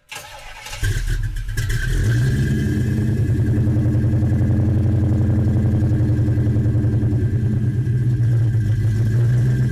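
Car engine that builds up over the first two seconds and then runs at a steady idle, with a fast, even pulsing beat.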